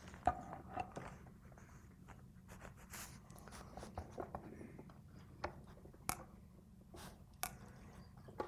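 Faint, irregular clicks and light knocks of steel Hardinge cross-slide parts being handled and set down.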